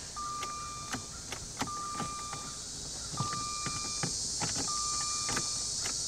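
A 2003 Jaguar S-Type's dashboard warning chime sounding with the key on: a single high tone about a second long, four times, roughly every second and a half. There is no starter or engine sound with it, because the car does not crank.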